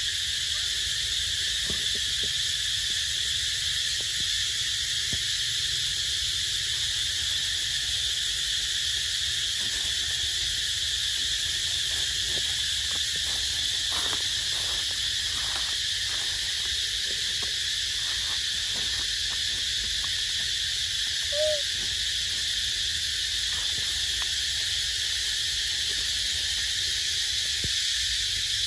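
Steady, even high-pitched drone of an insect chorus in woodland. There are a few faint clicks, and one short squeak about two-thirds of the way through.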